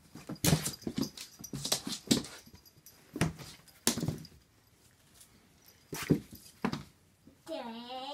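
Irregular sharp knocks and thumps of a Maine Coon cat pouncing and scrabbling on a wooden floor. Near the end a drawn-out whining call that dips and then rises in pitch.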